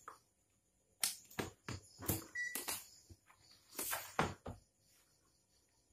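Handling noise: a run of sharp clicks, knocks and rustles from test leads and cables being moved about over an opened LED TV's circuit boards. It starts about a second in and dies away after about four and a half seconds, with one short high beep in the middle.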